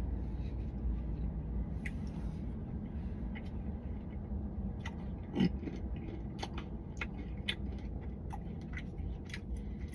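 Someone chewing a mouthful of ice cream with cookie pieces: irregular soft clicks and crunches over a steady low hum, with a brief murmur from the voice about halfway through.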